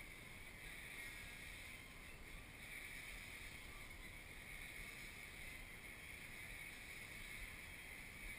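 Faint, steady high whine of a homemade coilgun's capacitor-bank charger as it charges the capacitors, over a light hiss.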